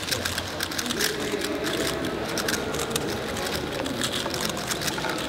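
Rapid, continuous plastic clicking and rattling of a speedcube being turned, over faint background chatter.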